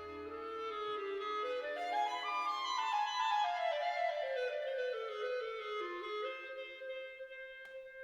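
Instrumental background music: a melody that climbs note by note and then steps back down, over held notes.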